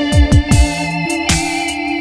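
Background electronic music: held keyboard chords over a steady beat with deep kick drums.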